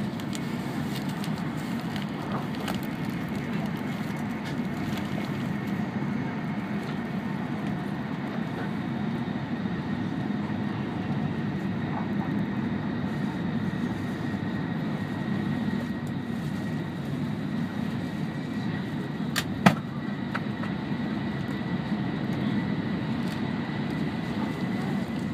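Inside the cabin of an E5-series Shinkansen running at speed: a steady low running rumble with a faint high tone held throughout. A single sharp click stands out about twenty seconds in.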